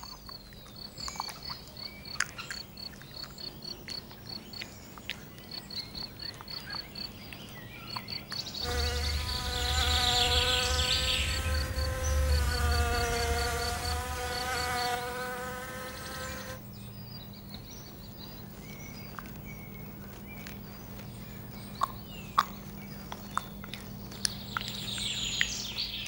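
A wasp buzzing in flight for about eight seconds, starting about eight seconds in, its pitch dipping and rising a little. Before it, high insect chirps repeat a few times a second; toward the end come a few soft clicks.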